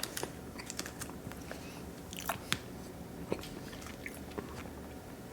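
A person chewing a bourbon vanilla chocolate truffle: soft mouth clicks and smacks, with a few sharper clicks near the middle.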